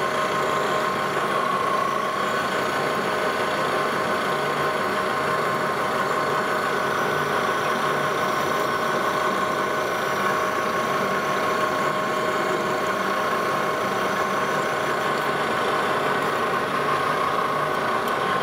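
Engine lathe running steadily with a constant whine while a parting blade cuts into the spinning workpiece, lubricated with brushed-on cutting oil, to part it off.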